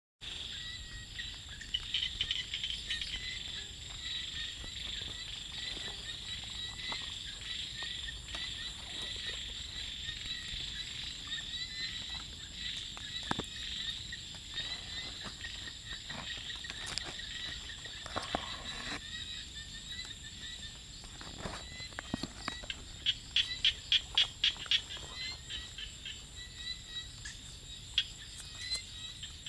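Evening chorus of small paddy frogs and insects: a dense, pulsing mass of calls under a steady high insect whine. About 23 seconds in, one caller starts a run of louder rapid calls, about four or five a second, for two seconds or so.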